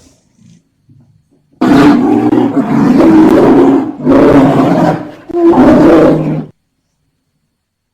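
Polar bear roaring: three loud, rough roars back to back, starting about a second and a half in, after a few faint low grunts. The last roar cuts off suddenly.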